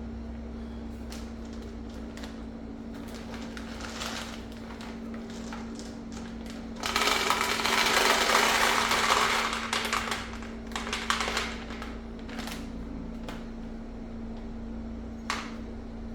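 Small handling clicks, then from about seven seconds in, roughly three seconds of hard projectiles rattling as they are poured into a Byrna MLR rifle's hopper, followed by a few more clicks. A steady low hum runs underneath.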